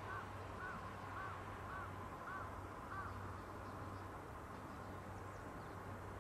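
A crow cawing six times in quick succession, about two calls a second, then stopping, over a low steady hum.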